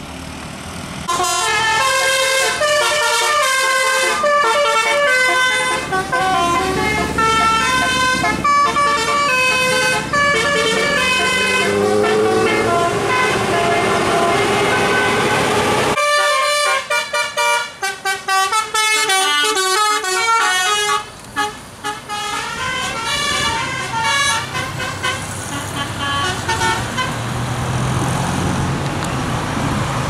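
Tour bus 'telolet' musical air horns playing quick tunes of many short stepped notes. The sound cuts off suddenly about halfway through and a second horn tune starts straight away.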